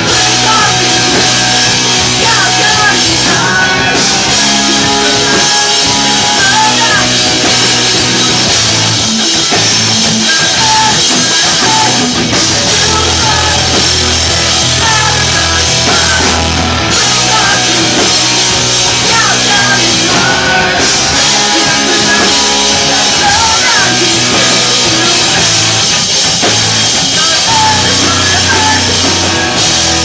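A live rock band playing loud: drums with crashing cymbals, bass and electric guitar, with a singer's voice over them. Right at the end the drums drop away, leaving the guitar.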